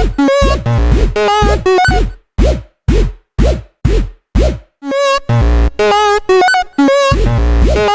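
Electronic dance music in a dubstep style: a chopped, stuttering synth melody over heavy drum-machine kicks. About two seconds in, the melody drops out, leaving a run of booming kicks falling in pitch about twice a second. The melody comes back after about three seconds.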